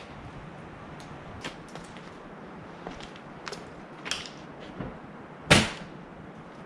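Scattered light clicks and knocks of things being handled, with one much louder sharp knock about five and a half seconds in.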